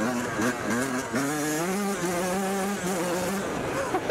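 Yamaha YZ125 two-stroke dirt bike engine under way. The revs climb about a second in, hold steady, then ease off near the end.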